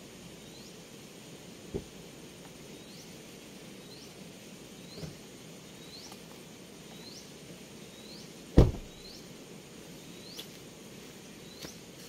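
A car door slammed shut with one loud thud about eight and a half seconds in. Behind it, a high rising chirp repeats about once a second over a steady outdoor hush, with a few faint thumps.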